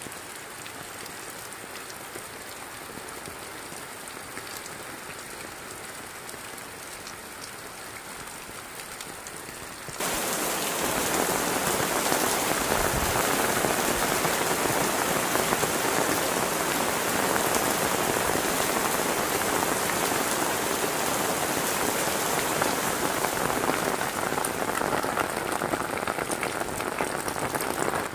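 Heavy rain falling steadily, with a sudden jump to much louder pouring about ten seconds in.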